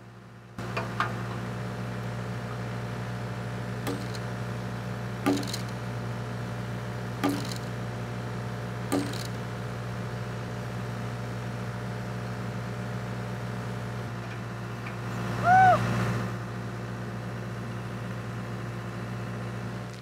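Hitachi Zaxis excavator's diesel engine idling steadily, with about five sharp hammer knocks on the timber a second or two apart in the first half. About fifteen seconds in comes one short, loud squeal that rises and falls.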